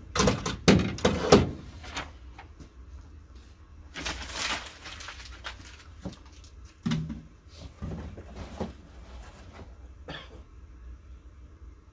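Clunks and clicks of plastic printer parts being handled in the opened laser printer, then rustling and knocks as parts and packaging are handled at a cardboard box.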